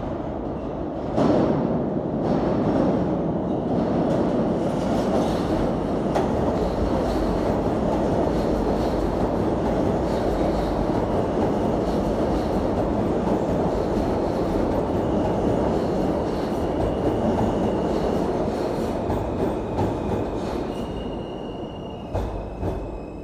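An R160A-1 subway train on the J line entering the station. About a second in it comes in with a sudden jump in loudness, then a steady, loud rumble of wheels on rail. From about halfway a high, steady squeal joins in, and near the end the noise eases off with a few clicks.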